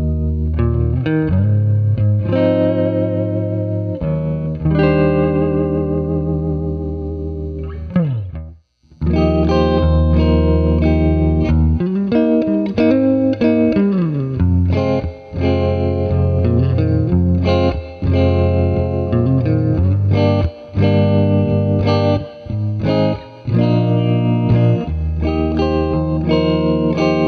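Electric guitar, a 1966 Fender Mustang, played through a miked 1977 Fender Princeton Reverb amp with the amp's own reverb and tremolo as the only effects. Ringing chords with wavering upper notes come first. After a brief break about eight seconds in, busier picked lines follow, with some bent notes.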